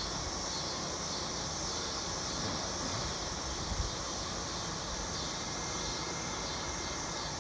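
Honeybees of a queenless colony buzzing around their opened hive, with a steady high hiss of outdoor ambience underneath.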